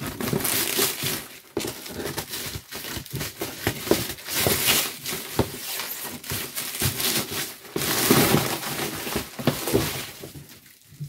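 Thin plastic wrapping bag crinkling and rustling as it is cut open with scissors and pulled off a cardboard appliance box, with short knocks as the box is handled.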